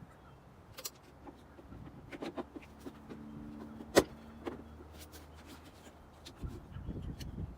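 A small electric motor runs for about three seconds with a steady hum, and a single sharp click about four seconds in, among a few lighter clicks.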